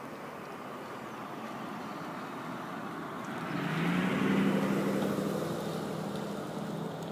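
A police car driving past: engine and tyre noise swell to a peak about four seconds in and then fade as it moves away, leaving a low engine hum.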